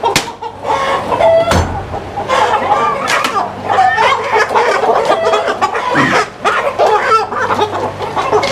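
A flock of chickens clucking and squawking, many birds calling over one another, over a low steady hum. A sharp knock comes right at the start and another about a second and a half in.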